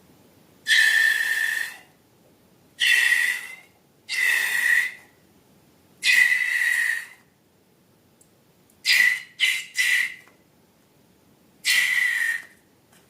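Air squealing out of a balloon's stretched neck in short bursts at one steady high pitch: eight squeals of about a second or less, with three quick ones close together just past the middle.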